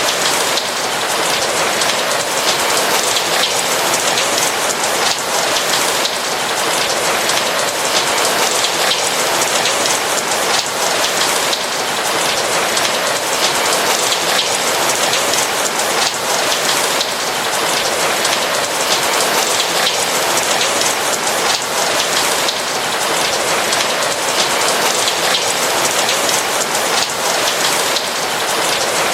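Steady rain, a dense patter of raindrops falling without let-up.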